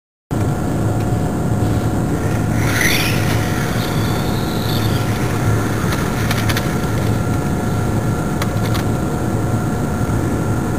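Steady outdoor background rumble and hiss with a low hum, and a brief wavering whistle about three seconds in.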